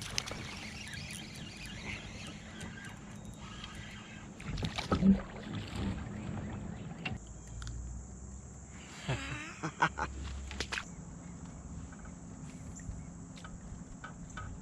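Knocks and water sounds from a fishing kayak on the river, over a steady faint background. There are two clusters of knocks, about five seconds in (the loudest) and about ten seconds in, the second with a short swishing sweep.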